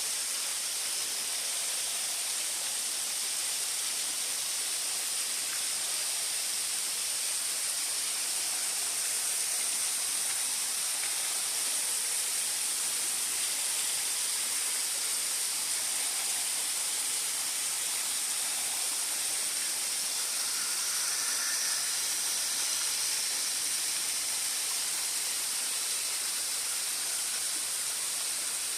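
Waterfall pouring: a steady, even rush of falling water, bright and hissy.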